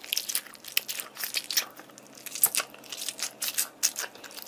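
Rubber squishy toy squeezed by hand, its chunky blue goo filling squelching and crackling out in many quick, irregular wet squishes.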